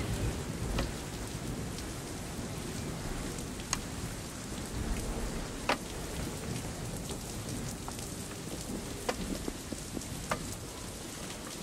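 A rag rubbing oil into a hardwood tortilla press makes a steady hissing scrub. Scattered light clicks and taps come from the wooden press and the oil bottle being handled.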